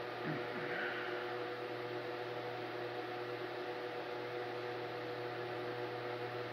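Electric fan running: a steady hum with an even hiss.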